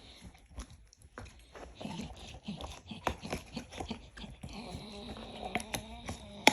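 Dog making a strange noise: a run of short irregular clicks and smacks, then a low, drawn-out vocal sound from the dog in the second half. A sharp click comes right at the end.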